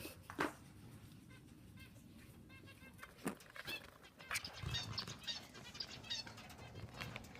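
Small aviary birds chirping in short, repeated high notes, more of them in the second half. There is a sharp knock about half a second in and a couple of fainter ones a few seconds later.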